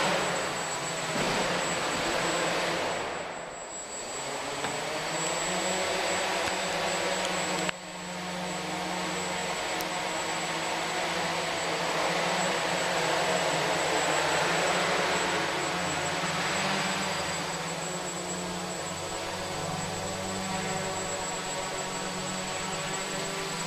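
Electric motor and propeller of a small radio-controlled model aircraft flying, a steady buzzing drone whose pitch rises and falls with the throttle, over a thin constant high whistle.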